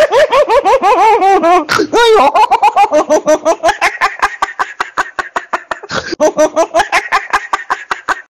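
High-pitched human laughter, a long run of rapid ha-ha syllables at about six a second with a couple of short catches for breath, cutting off abruptly near the end.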